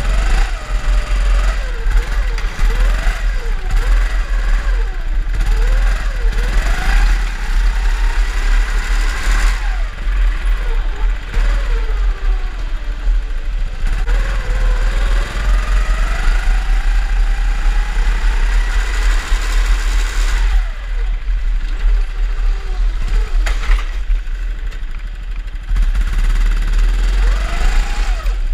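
Drift karts running, their motors revving up and down so that the pitch keeps rising and falling, with one long climb in the middle, over a steady low rumble.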